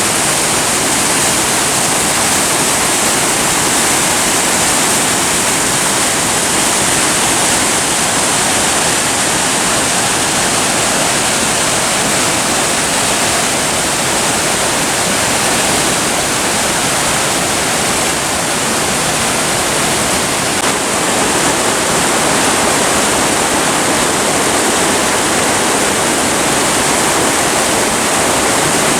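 Mountain stream water rushing and falling over rocks: a steady, loud rush with no pause.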